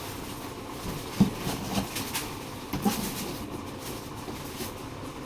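Cardboard packaging being handled: rustling and scraping, with a few soft thumps. The sharpest thump comes about a second in and another near the three-second mark.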